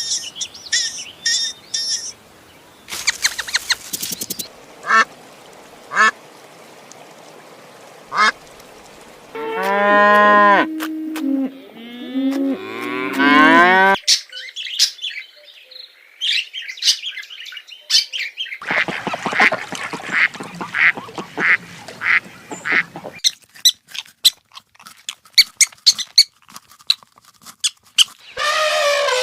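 Ducks quacking in quick runs of short calls, with other farm-animal calls between them, including a long pitched call that bends up and down about ten seconds in.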